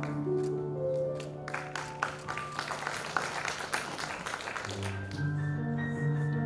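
Instrumental music playing as the routine's soundtrack: held notes over a steady bass note with short plucked or struck notes. About two thirds through, the bass line and chords change.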